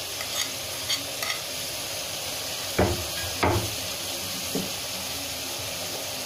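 Chicken and spice masala sizzling steadily in a metal pot while onion paste is stirred in with a spoon, with light scrapes and two louder spoon knocks against the pot about halfway through.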